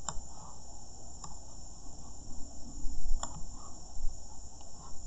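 A few sharp computer mouse clicks, the loudest about three seconds in, over a steady high-pitched background whine.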